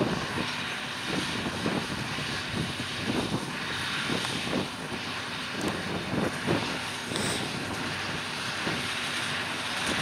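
Massey Ferguson 6190 tractor's six-cylinder diesel running steadily under load while it pulls a Welger AP830 small square baler baling straw, with a regular knock about every 0.7 seconds from the baler's plunger.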